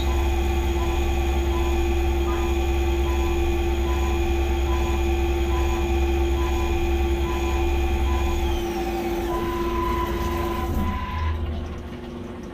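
Skyfire SVM-2 CNC mill cutting aluminum with flood coolant: a steady spindle whine over a low rumble, with a faint regular ticking. About nine seconds in, the rumble drops and the spindle winds down, its pitch falling, as the head retracts and the cut ends.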